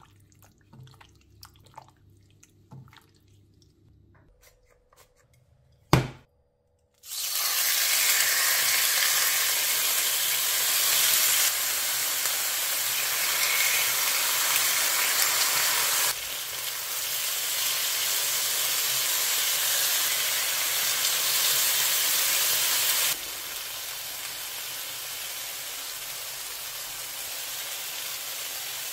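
Chicken sizzling as it cooks. A few light kitchen knocks and a sharp click come first, then a loud, steady sizzle starts about seven seconds in and steps up and down in level a few times.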